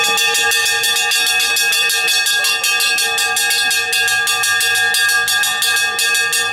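Small brass pancake bell rung rapidly by its pull rope, clanging at about five strokes a second with a steady ringing tone between strokes. The ringing is the traditional signal to begin frying pancakes.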